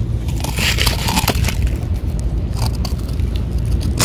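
Mackerel tabby cat licking and smacking at a churu treat on a spoon: a run of small wet clicks and crackles, busiest near the start, over a steady low rumble.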